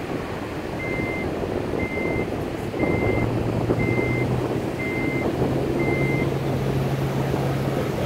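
A car's electronic warning chime beeping six times, about once a second, each beep short and high. Under it runs the car's engine with a low hum that grows louder about three seconds in, and a noisy bed of wind and surf.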